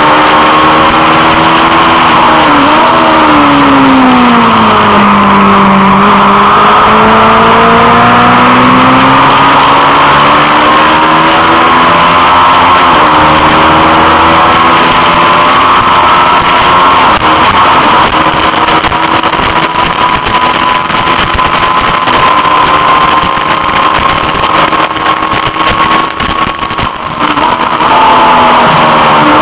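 Honda CB500 parallel-twin race bike engine heard from onboard at racing revs. The pitch falls sharply with downshifts about two to five seconds in, then climbs through the gears and holds high down a straight. Rough wind buffeting on the microphone comes in at top speed, and the pitch drops again near the end.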